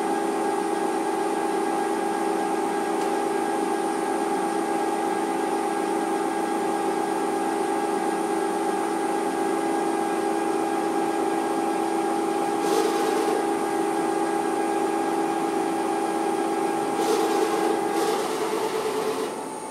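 CNC machine running a thread-cutting cycle: a steady mechanical hum with a whine, broken twice by short hissing bursts. Near the end one tone of the whine drops out and the sound dies down.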